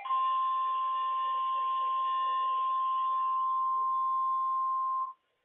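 NOAA Weather Radio warning alarm tone, a single steady pure tone of about 1050 Hz held for about five seconds and then cut off, with faint receiver noise beneath it. The tone is the signal that an urgent warning broadcast follows.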